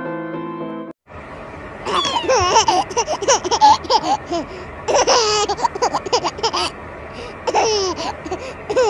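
Background music stops about a second in. Then comes high-pitched giggling laughter in repeated bursts, the pitch sliding up and down, with breathy gasps between them.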